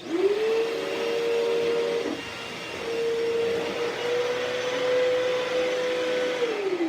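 2012 Bissell Cleanview Helix upright vacuum cleaner switched on, its motor whine rising quickly to speed. It runs steadily with a brief dip about two seconds in, then winds down near the end as it is switched off.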